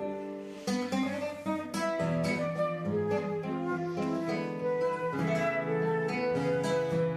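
Acoustic guitar played live, plucked notes and strummed chords in an instrumental passage of a chamamé.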